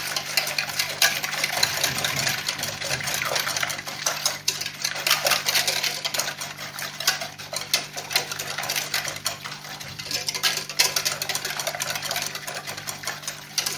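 Whisk stirring cold milk, starch and sugar in a pot, with fast, uneven clicking of the wires against the pot's side.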